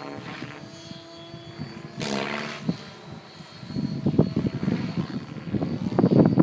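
Electric 700-size Synergy E7SE RC helicopter in 3D flight, its rotor and motor sound rising and falling with the manoeuvres. A brief pitched swell comes about two seconds in, then a choppy fluttering sound of the rotor grows louder through the second half.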